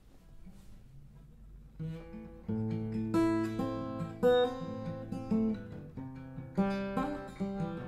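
Acoustic guitar played by hand: after a quiet start it begins about two seconds in with a slow run of separately picked notes and chords that ring on.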